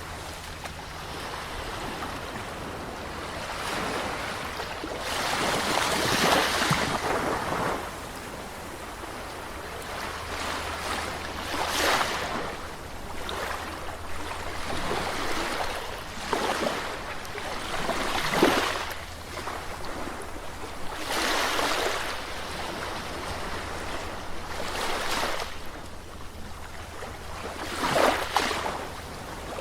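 Gentle sea waves breaking and washing up on a shore, in a steady wash of surf with a swell every few seconds, the loudest crashes near the middle and near the end. A faint low hum runs underneath.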